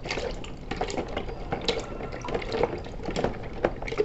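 Hand swishing and splashing plastic toy vehicles around in a tub of water, with many small irregular splashes.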